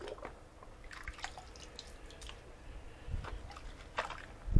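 Water dripping and sloshing as an old cat water bowl is emptied and handled, with scattered small splashes and light knocks and a louder splash near the end.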